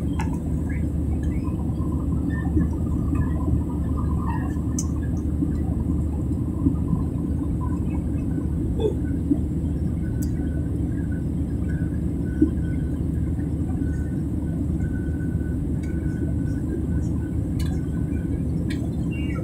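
Steady low rumble of a Boeing 737's cabin in flight: jet engine and airflow noise heard from inside at a window seat.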